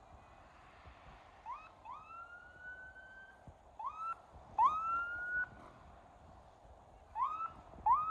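A canine howling in three bouts, each a short upward yip followed by a longer, slowly rising howl; the last howl is cut off near the end.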